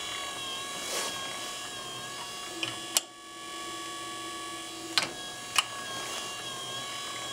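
Metal lathe's power feed, a small DC windshield-wiper motor geared to the lead screw, running with a steady whine. The feed is disengaged and re-engaged by hand with a few sharp clicks, the loudest about three seconds in.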